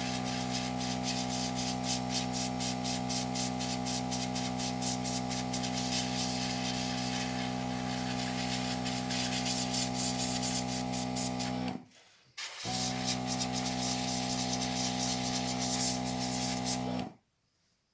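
Small airbrush compressor running with a steady motor hum while air hisses from the airbrush, spraying thin coats of glass paint. The sound cuts out about twelve seconds in and starts again within a second, then stops again near the end.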